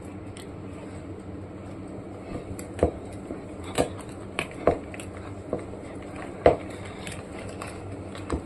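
Stainless steel wire whisk stirring thick banana bread batter in a glass bowl, with irregular clinks where the wires knock against the glass, about seven in all; the loudest comes about six and a half seconds in.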